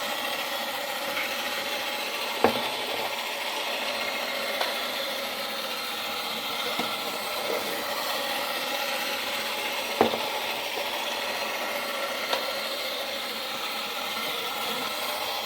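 1960s Marx bump-and-go Dalek toy running, its small electric motor and freshly greased gears whirring steadily, with a sharp knock a couple of seconds in and another about ten seconds in.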